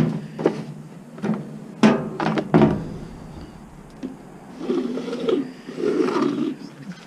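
Scrap appliance parts being handled and pried apart: a series of about six knocks and clunks in the first three seconds, then a couple of seconds of rubbing and scraping.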